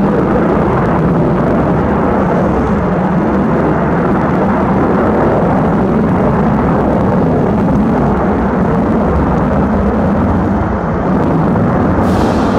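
Boeing 727 jet airliner climbing out after takeoff: its three low-bypass Pratt & Whitney JT8D turbofans make a loud, steady, rumbling roar.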